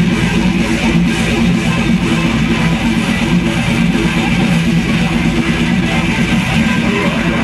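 A technical death metal band playing a song live and loud, with electric guitars over a dense, unbroken wall of sound.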